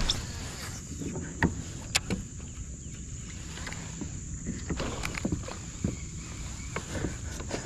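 Steady high buzz of insects over a low rumble, with scattered small knocks and clicks from fishing gear and the kayak.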